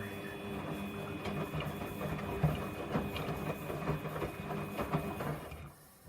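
Samsung washing machine's drum motor turning the drum with the wet load, a steady whine over a low hum with scattered soft knocks, stopping about five and a half seconds in.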